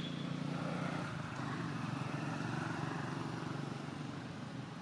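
A motorbike passing, its engine humming steadily; the sound swells over the first second or two and fades toward the end.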